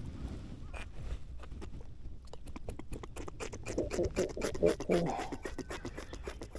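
Rapid scratching and tapping of a freshly landed fish thrashing against a hard surface. It grows busy about halfway through, with a few short low buzzing sounds among the clicks.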